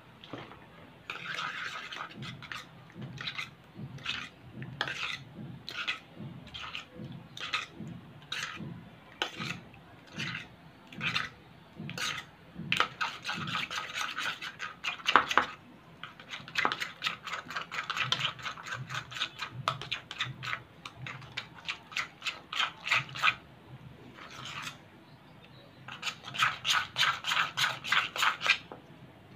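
Metal spoon stirring and scraping around a bowl of PVA glue and borax activator as it thickens into slime. Separate strokes about one or two a second at first, then fast runs of stirring.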